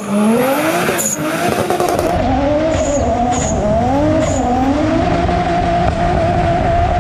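Toyota Supra drift car's engine revving up and down several times, then held steady at high revs while the car slides, over loud tyre noise, with a few short sharp cracks in the first half.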